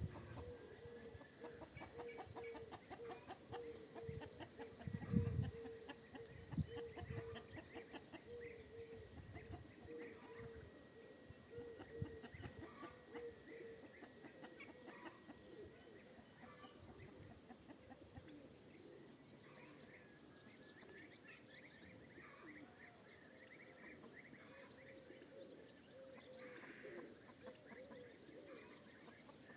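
Chickens clucking quietly in a farmyard, in a steady run of repeated short calls that fades in the second half. A high-pitched trill keeps coming and going in the background, and there is a low thump about five seconds in.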